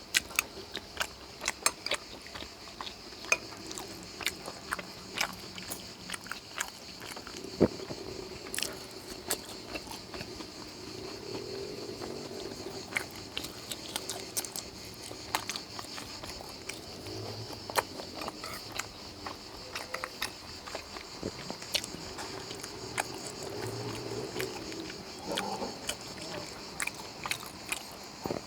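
Person eating close to the microphone: chewing on sweet potato and fried egg, with many short sharp mouth clicks and smacks scattered throughout.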